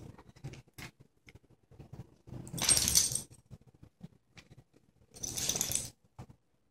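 Dogs playing on a hardwood floor: small paw clicks and scuffles, then two louder scrabbling bursts of about a second each with a bright, jingly edge, one a third of the way in and one near the end.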